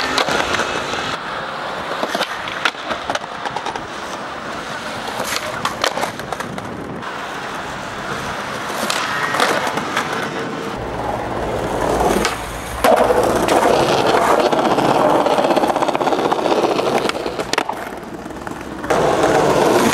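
Skateboard wheels rolling over pavement, with sharp cracks of the tail popping and the board landing several times through the stretch.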